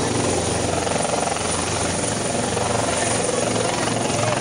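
Police helicopter running while it sits on the ground: the turbine engine and rotor make a steady, loud rushing noise with a low even hum underneath.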